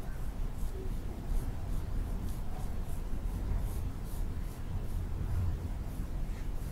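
Hand tool strokes working epoxy into fibreglass tabbing tape, heard as irregular short scratchy strokes over a steady low rumble.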